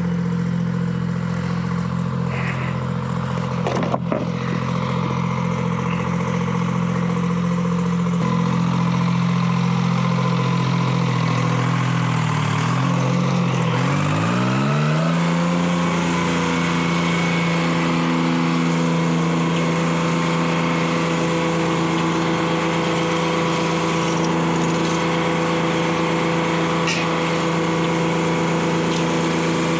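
Detroit Diesel 3-71 two-stroke three-cylinder diesel power unit running steadily. About halfway its pitch dips and then climbs to a steady higher speed. A single sharp knock about four seconds in.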